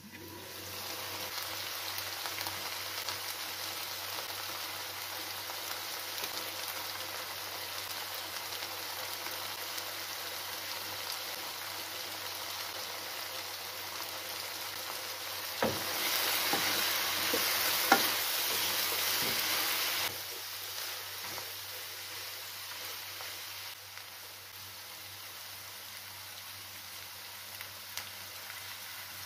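Chicken and vegetables sizzling steadily in a hot wok as they are stir-fried, with a louder stretch of sizzling and a couple of sharp clicks of the spoon against the pan a little past halfway.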